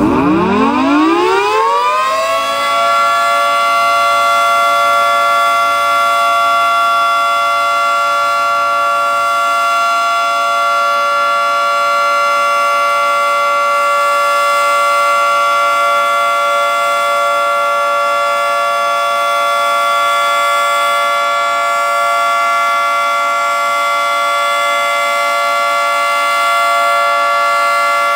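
Federal Signal 2T22A two-tone, 22-port outdoor warning siren winding up from a low growl to full pitch in about two and a half seconds, then holding a loud, steady two-note chord: the steady alert signal of a routine siren test.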